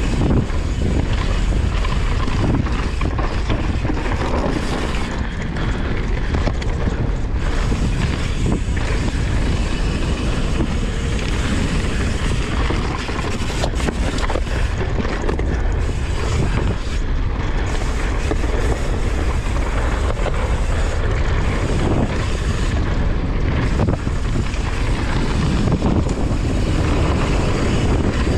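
Yeti SB150 enduro mountain bike descending a dirt trail at speed: tyres rolling on dirt and stones, with the bike clattering over bumps and heavy wind on the microphone.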